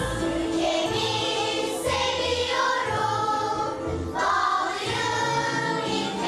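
A school choir singing together over instrumental accompaniment with a regular low beat.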